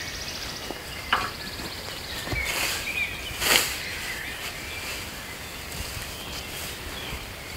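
A fan rake scratching and rustling through cut grass on a lawn, with two brief sweeps about midway, over steady outdoor background noise.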